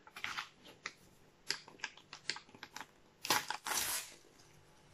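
Panini sticker packet handled and torn open by hand: a run of small crinkles and clicks, then a louder stretch of rustling tearing about three and a half seconds in.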